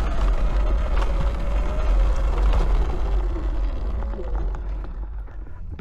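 Eride Pro SS electric dirt bike riding on a trail: a thin motor whine that wavers with the throttle over heavy wind rumble on the camera microphone. Everything grows quieter toward the end, and the whine drops in pitch about four seconds in as the bike eases off.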